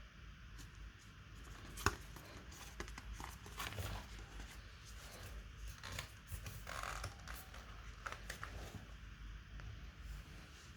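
Small clicks, taps and scraping from hands handling laptop parts during an SSD swap, with one sharp click about two seconds in.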